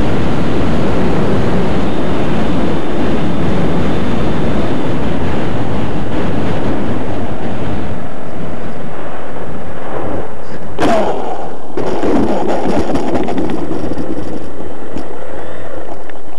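Loud steady rushing noise of airflow and motor on a mini camera mounted under the wing of an RC T-28 model airplane close to the ground, easing a little about eight seconds in. A single sharp knock comes about eleven seconds in.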